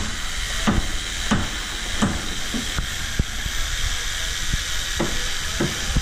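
Steady hiss with a low rumble, and regular soft thuds about every two-thirds of a second, like footsteps on rubble.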